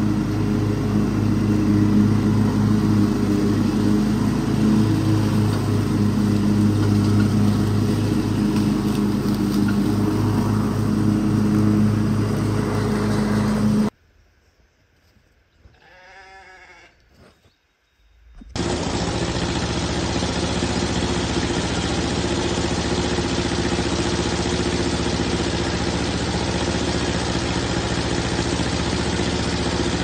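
Ride-on lawn mower engine running steadily, cutting off abruptly about 14 seconds in. A few seconds of near silence follow, with one brief faint call. Then a portable bandsaw sawmill's engine starts up and runs steadily.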